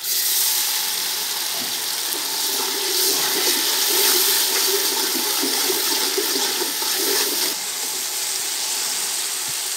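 Ginger-garlic paste hitting hot oil and lightly browned onions: a loud, steady sizzle that starts suddenly and eases a little near the end.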